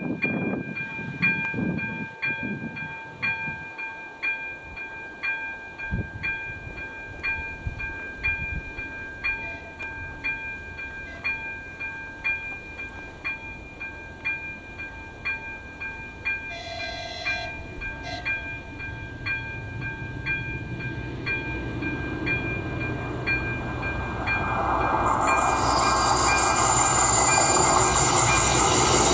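Level-crossing warning bell ringing steadily at about two strikes a second, with two short horn blasts about halfway through. A ČD class 814 RegioNova diesel railcar then approaches, its rumble and wheel noise growing louder over the last several seconds until they cover the bell.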